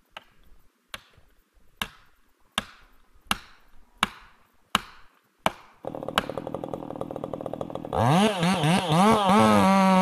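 A tool strikes wood about eight times at an even pace, roughly one blow every three-quarters of a second. About six seconds in a chainsaw starts running steadily, and from about eight seconds it revs up and down, much louder.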